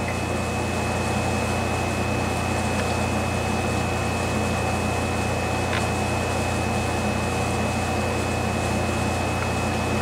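1987 Friedrich Power Miser window air conditioner (model SP05G10C) running: its fan and rotary compressor make a steady low hum, with a thin steady high tone above it.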